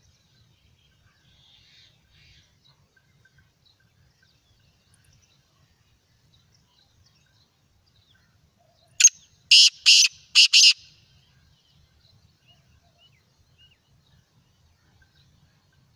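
Black francolin calling: a short first note, then three loud, harsh notes in quick succession, about nine seconds in.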